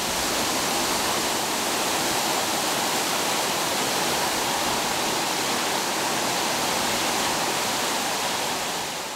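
Steady rush of churning, bubbling water in an aquarium tank, fading out near the end.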